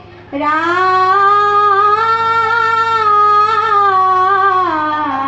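Dihā nām, an Assamese devotional chant: singing on one long drawn-out note that rises after a brief break at the start, holds with a slight waver, and falls near the end.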